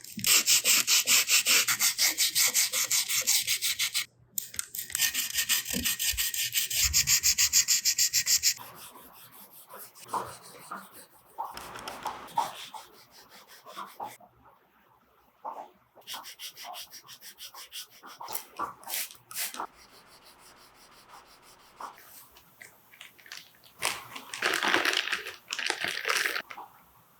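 Abrasive scrubbing of a surface in rapid, even back-and-forth strokes, loud and hissy for about eight seconds with a brief stop around four seconds in. Then come quieter scattered clicks and handling knocks, and near the end a shorter burst of scrubbing.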